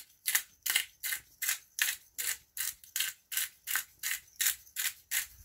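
Hand-twisted pepper mill grinding pepper over a cooking pot, with even, rasping ratchet strokes about two and a half to three a second.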